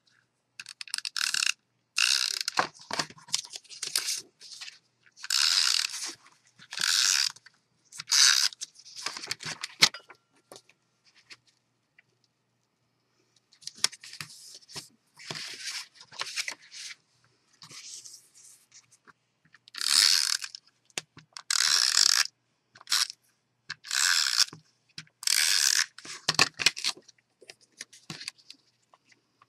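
About twenty short scraping strokes on paper and cardstock from designer paper being fitted to a purse, in two runs with a pause of a few seconds in the middle.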